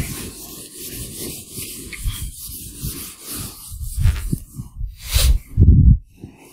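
Whiteboard being wiped clean with a duster: a run of rubbing strokes, followed in the last couple of seconds by a few dull thumps.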